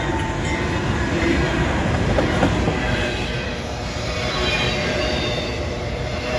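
Autorack freight train rolling past close by, a steady loud rumble of steel wheels on the rails with a few clicks from the cars.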